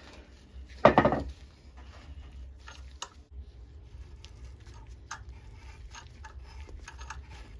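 A loud brushing thump as a gloved hand passes close over the microphone about a second in. Then faint, scattered ticks and creaks as a hand tap cuts new threads through a bolt hole in an aluminum transmission case, over a low steady hum.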